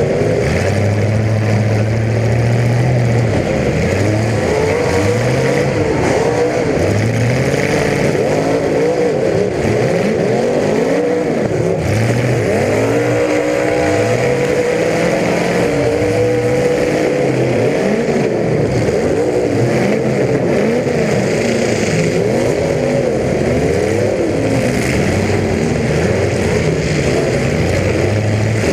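Several demolition derby cars' engines revving up and down at once, their pitches rising and falling over one another continuously.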